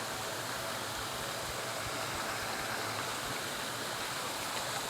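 River water flowing fast and steady.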